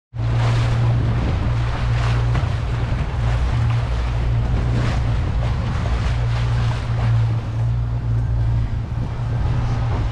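Boat underway: twin outboard motors running steadily with a constant low drone, over water rushing and splashing along the hull and wind buffeting the microphone.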